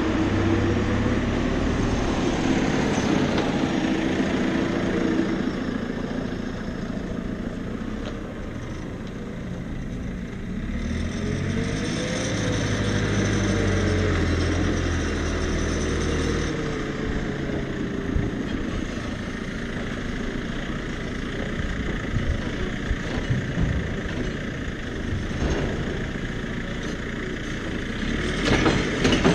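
JCB telehandler's diesel engine running, its speed rising and falling as it carries and lifts a grab-load of manure. Near the end, knocks and rattles as the manure grab tips its load into a trailer.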